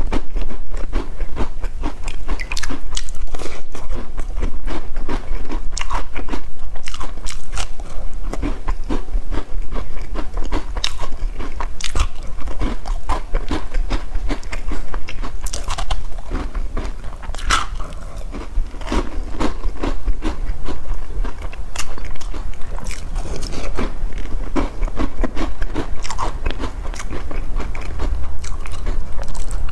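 Close-miked biting, crunching and chewing of crisp sesame-topped biscuits dipped in milk, many sharp crunches in quick succession.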